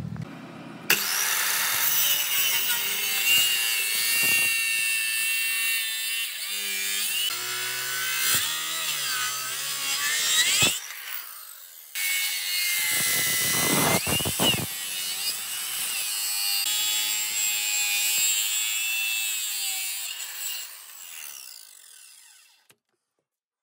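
A power tool cutting or sanding wood, a dense high whine whose pitch wavers as it loads. It stops briefly about eleven seconds in, starts again, and dies away near the end.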